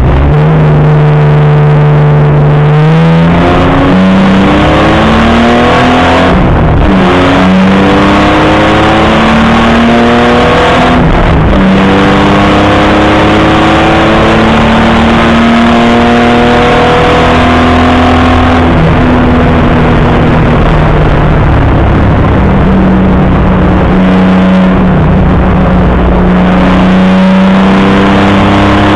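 Classic racing car's engine heard from onboard, loud throughout, accelerating hard with the revs climbing and dropping at each of several upshifts, then running at fairly steady revs near the end.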